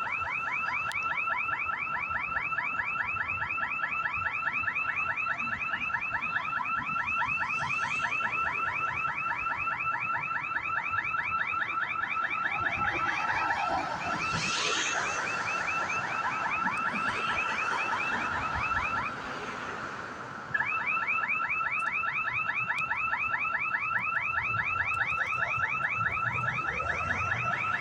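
A construction site's intrusion alarm sounding a rapid, repeating warble of many pulses a second over a steady tone. It cuts out about nineteen seconds in and starts again a second and a half later.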